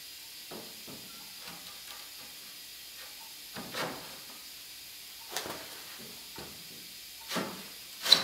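A few scattered soft scuffs and knocks of work shoes on a dusty concrete workshop floor, with a sharper click near the end as a foot lifts, over a faint steady hiss.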